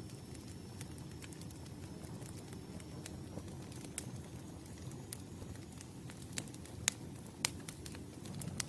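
Wood campfire burning with a steady low rush and scattered sharp crackles and pops, the two loudest pops coming close together near the end. A faint thin high whistle sounds through the first half.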